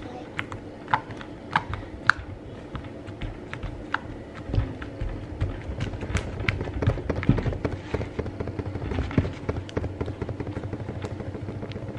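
White furry slime being pressed and poked with the fingers, giving many small sharp pops and clicks, coming thickest in the middle.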